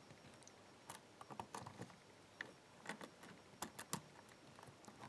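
Faint, irregular clicks of a hook pick working the spool security pins of a pin-tumbler lock held in a false set, a few clicks a second.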